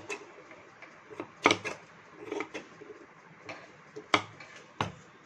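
Large tailor's scissors snipping through fabric: a few sharp metallic snips at uneven intervals, loudest about one and a half seconds in and again about four seconds in.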